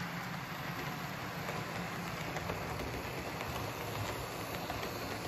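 Model railway train running steadily along the track and over a set of points, with a steady motor hum and faint clicking of wheels over rail joints. It runs through the points without stalling, a sign the points' electrical connection is now fixed.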